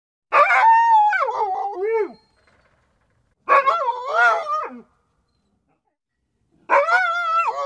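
A dog crying: three long, drawn-out whining howls with short pauses between them, the pitch wavering up and down and dropping away at the end of each cry.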